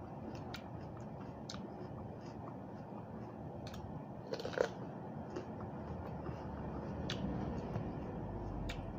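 Close-up chewing and biting of crisp raw vegetables: scattered short, sharp crunches over a steady low background noise, with one louder bite about four and a half seconds in.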